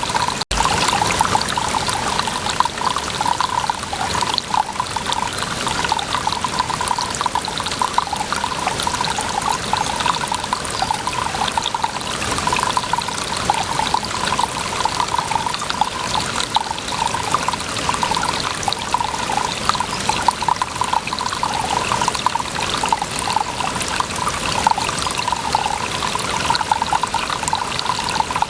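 Water trickling and splashing steadily, a continuous bubbling pour with a brief break about half a second in.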